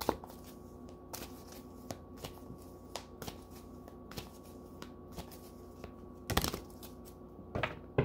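Oracle cards being shuffled by hand: a run of light card flicks and rustles, with louder bursts of shuffling about six seconds in and again near the end.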